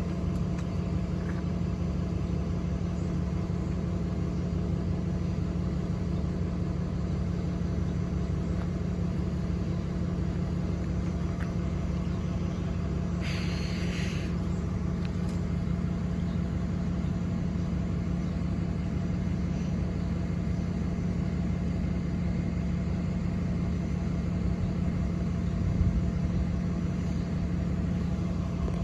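Idling vehicle engine: a steady low rumble with a constant hum. A brief hiss comes about thirteen seconds in.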